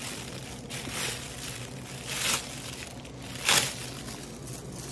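Clear plastic wrapping crinkling and rustling as it is handled and pulled open, with a few louder crackles, the loudest about three and a half seconds in.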